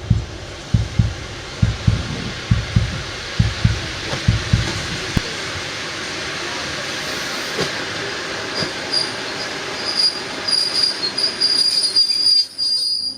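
A train rolling past with a steady rumble and heavy low thumps for the first few seconds. From about nine seconds in, a high, stuttering metal squeal from the wheels sets in as it slows, and the sound cuts off abruptly at the end.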